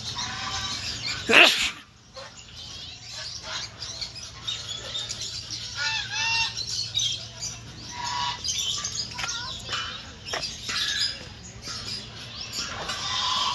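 A flock of birds calling and chirping with wings flapping, and one loud, brief rush of sound about a second and a half in.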